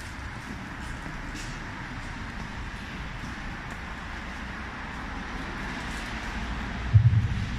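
Steady hum of road traffic, with a single low thump about seven seconds in.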